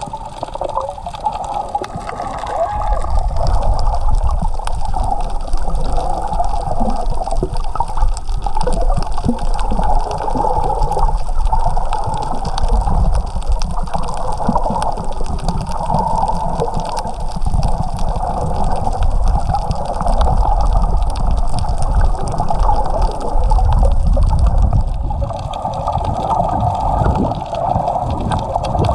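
Water sloshing and gurgling around a camera held underwater, a steady muffled rush with a deep rumble and no distinct events.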